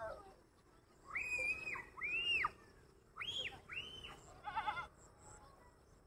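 Goats bleating: two pairs of high, drawn-out calls, then a short quavering bleat near the end.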